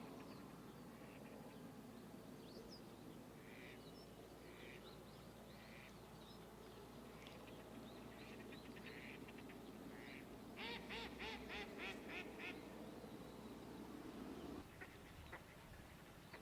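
Small songbird calling, most likely a varied tit: scattered short high call notes, then a quick run of about eight harsh nasal notes, about four a second, roughly two-thirds of the way in. Faint steady outdoor background hiss underneath.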